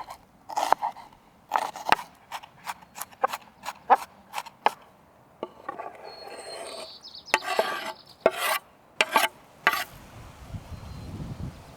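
Hands working with dough and kitchen utensils: a run of sharp taps and clicks, a short rubbing scrape, then more taps.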